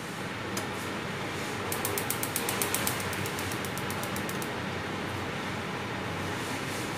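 Gas stove's electric igniter clicking rapidly, about ten clicks a second for nearly three seconds, as a burner knob is turned, over a steady hiss.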